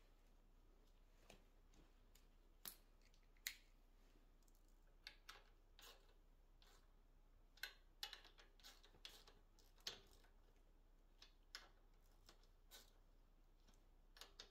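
Faint, irregularly spaced sharp metal clicks and clinks of a socket extension and hand tool being handled, about fifteen over the stretch, the busiest cluster around the middle.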